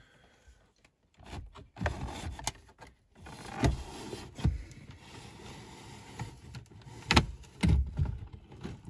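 A BMW C33 cassette head unit's metal case being slid out of the dashboard opening: a few clicks, then a scraping slide through the middle, and two sharp knocks near the end as the unit comes free in the hands.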